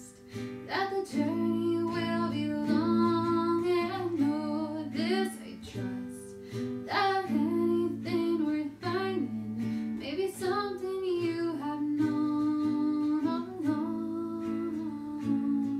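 Song: a voice singing a melody over guitar accompaniment.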